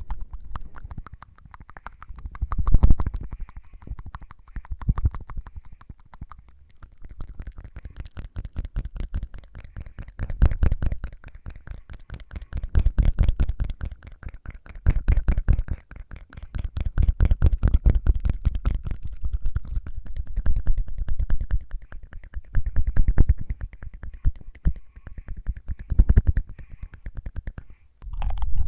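ASMR mouth sounds: rapid tongue fluttering, in bursts of a few seconds with short pauses between.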